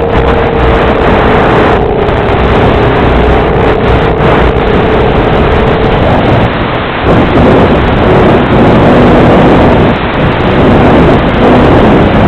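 Loud wind rush on an onboard FPV camera microphone, with the steady whine of the RC trainer plane's electric motor and propeller. The whine stops about six seconds in, leaving rough, distorted noise.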